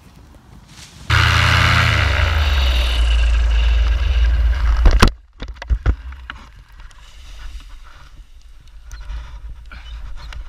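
Parajet Maverick paramotor's engine and propeller running loud during a skid landing, the engine note sinking. About five seconds in it cuts off suddenly with a couple of sharp knocks. Light scraping and rustling of harness and lines on the dirt follows.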